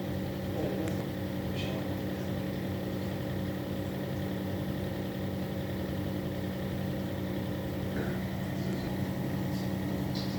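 A steady low mechanical hum that does not change, with a few faint, brief small sounds over it.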